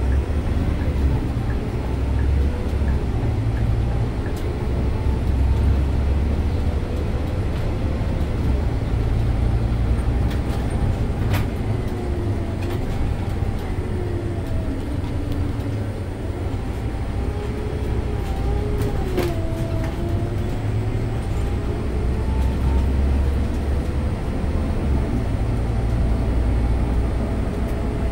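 Scania OmniLink city bus heard from the driver's seat as it pulls away and drives: a steady deep rumble from the engine and road, with whining tones from the drivetrain that rise and fall as the bus speeds up and slows. A couple of sharp clicks come through.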